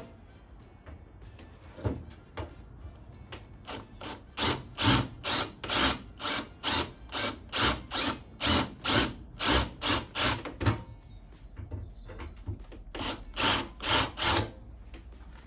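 Rhythmic hand-tool scraping strokes across a truck's sheet-metal fender, about two a second for several seconds, then a pause and a shorter run of a few strokes near the end.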